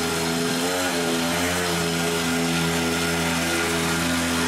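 Mini pocket bike's small engine running steadily at a fast idle, its pitch wavering slightly a couple of times in the first two seconds.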